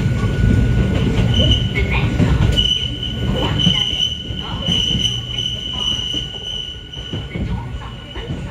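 Hakone Tozan Railway Moha 1 electric railcar's wheels squealing as they run through a curve: a high, steady squeal that starts briefly about a second in, holds strongly through the middle and fades near the end, over the low rumble of the moving car.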